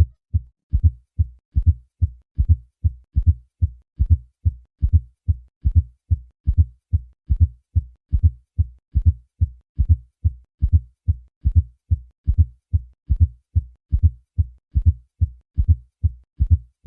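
Heart sounds in a steady triple rhythm of low-pitched thuds: a fourth heart sound in late diastole just before each normal first and second heart sound. This S4 gallop comes from forceful atrial contraction into a stiff left ventricle, most often the result of hypertension with left ventricular hypertrophy.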